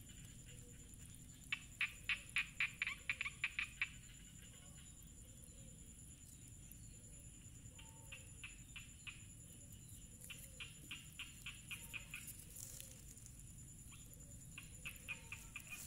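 An animal calling in three bursts of rapid clicking trills, each a couple of seconds long, with about eight to ten clicks a second. A steady high whine runs underneath.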